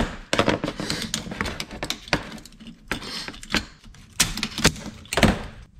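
Car head unit's metal CD/DVD drive mechanism being handled and worked at with a screwdriver: a steady run of small metallic clicks, taps and rattles, with a few sharper knocks in the second half.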